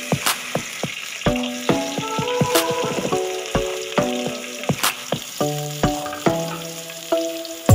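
Chopped onions and green chillies sizzling in hot oil with cumin seeds as they are dropped into the pan, a steady hiss. Background music with regular plucked notes plays over it.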